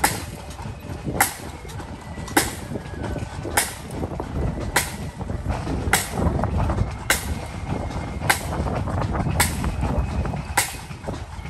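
Single sharp drum taps, evenly spaced about every second and a bit, beating time for a marching band between tunes, over a steady low rumble.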